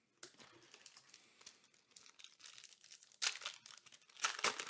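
Foil booster-pack wrapper crinkling as it is handled and torn open, with two louder crackles about three and four seconds in.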